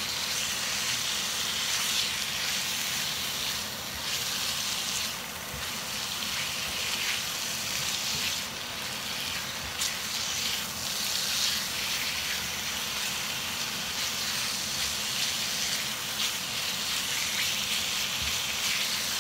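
Cut beef sizzling as it fries in spice paste in a nonstick wok: a steady frying hiss, with light scrapes of a silicone spatula stirring it.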